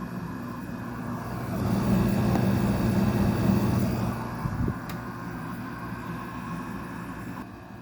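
Window air conditioner with a Rechi rotary compressor running on R22, giving a steady hum. A louder rushing swell rises about a second and a half in and fades after about three seconds.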